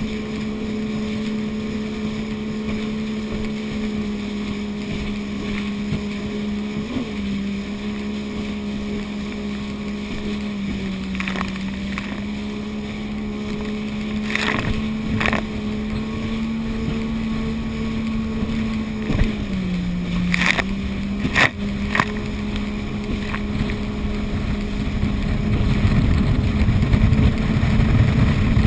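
Two-stroke jet ski engine running at a steady high pitch at speed, dipping briefly three times as the throttle eases. A few sharp knocks and splashes come in the middle, and wind buffets the microphone more strongly near the end.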